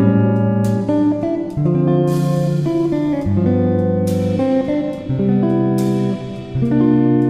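Background music led by guitar, with held notes changing about once a second and a cymbal wash on some of the changes.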